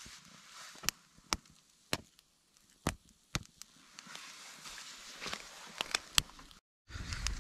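Young kindling fire crackling: a soft hiss broken by sharp, irregular wood pops and clicks. After a brief break near the end, a lower, steadier noise takes over.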